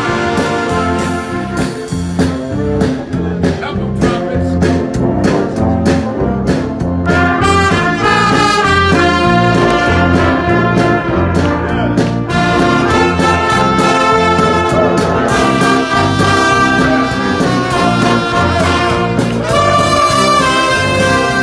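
A large gospel band of trumpets, trombones, clarinets, tuba, violins and drum kit playing together, brass leading over the drums. The drum strokes stand out in the first few seconds, then full held brass chords take over.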